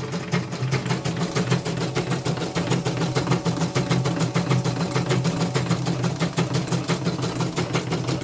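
Computerised embroidery machine, casing off, stitching steadily in its hoop: a steady motor hum under a rapid, even ticking of needle strokes. It is a test stitch-out after the machine has been re-adjusted in repair.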